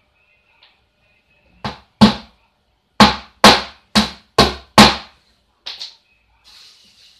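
Hammer driving a small nail into the wooden frame of a board: one lighter tap, then six sharp blows at about two a second, then two quick light taps.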